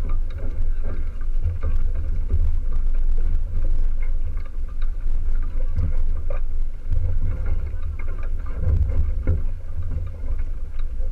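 Wind buffeting the microphone with a loud, gusting low rumble, over the wash of choppy water along the hull of a small sailboat under way.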